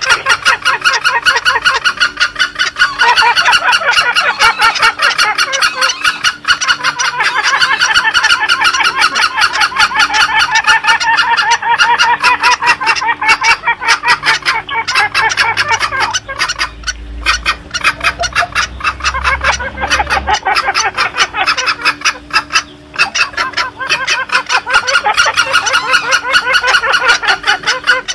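Green junglefowl calls used as a hunting lure: a dense, rapid train of overlapping calls that keeps going without a break.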